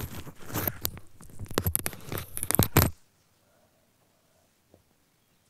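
Close-up crackling and scraping of objects being handled, full of sharp clicks, stopping abruptly about three seconds in.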